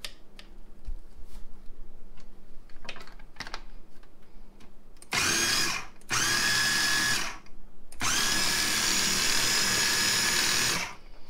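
Food processor motor running in three pulses, the last and longest about three seconds, pureeing onion and bell peppers. A few light knocks come before the first pulse.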